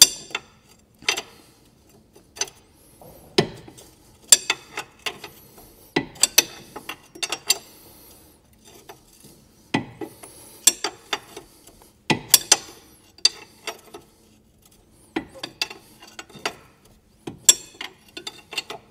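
Hand ratchet clicking in short clusters with pauses between them, as a tight lower ball joint nut is worked off its thread a little at a time.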